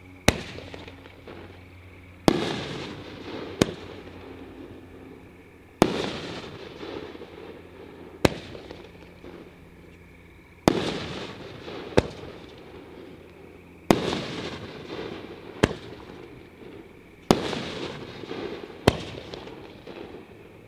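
A Hop Kee 'Fully Loaded' 9-shot 500-gram cake with 3-inch tubes fires one shot at a time. Each launch from a tube gives a sharp crack, and about two seconds later the shell bursts in the air with a louder bang whose rumble fades over a couple of seconds. There are six launches and five bursts, evenly spaced every three to four seconds.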